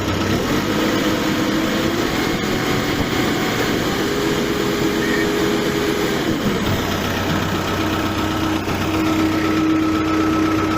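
New Holland LB115.B backhoe loader's diesel engine revved up from idle and held at raised speed for about six seconds, then dropping back to a steady idle.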